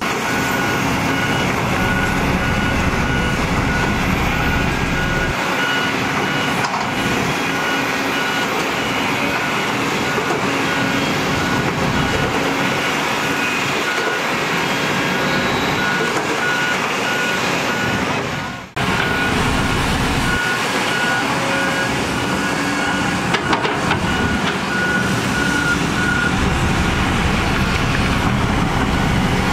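Dump truck's reversing alarm beeping in an even repeating pattern over the steady running of heavy diesel machinery; the beeping stops near the end.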